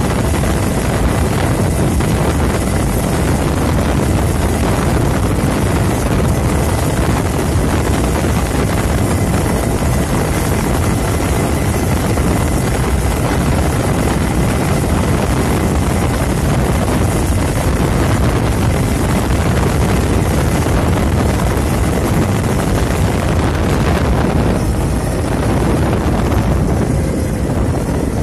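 Onboard sound of a 72 V, 3000 W brushless electric go-kart running flat out at about 30 mph: a steady, loud rush of wind and road noise with a faint high whine from the motor and chain drive, easing near the end as the kart slows.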